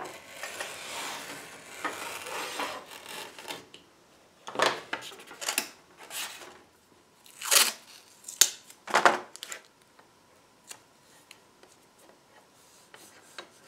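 A utility knife is drawn along a steel rule, scoring through thin veneer in a steady scratch. Then 1-inch tape is pulled off the roll and torn in several short, loud rips, followed by small taps and rubs as it is pressed down.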